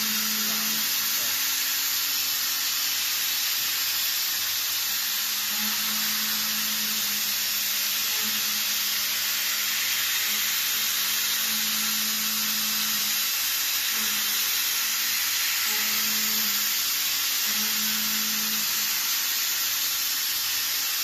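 End mill on a CNC vertical milling machine cutting a metal plate under a coolant nozzle: a steady high hiss of cutting and spray, with a faint low tone that comes and goes several times as the tool moves through the cut.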